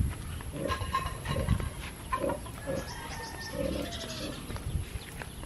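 Chickens clucking and small birds chirping in the background, with scattered low thumps.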